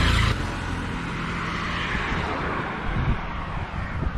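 A motor vehicle passing close by on the road: its engine is loudest right at the start and cuts away within the first half-second, leaving road noise that fades over the next few seconds.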